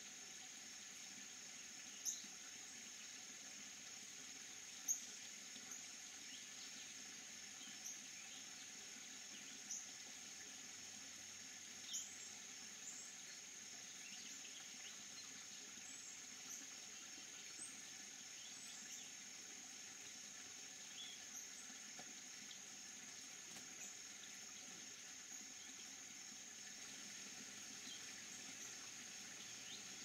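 Faint steady high-pitched insect chorus, with a scatter of brief splashes from an eastern towhee bathing in a stone birdbath, the loudest about two and five seconds in.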